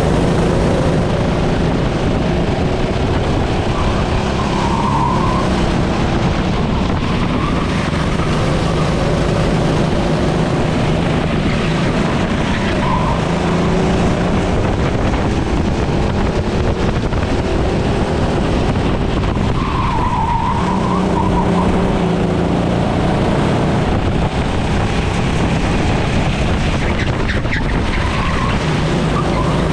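Racing engine heard continuously up close, its pitch rising and falling with throttle through the corners of a lap. Short tyre squeals come a few times, about 5, 13 and 20 seconds in.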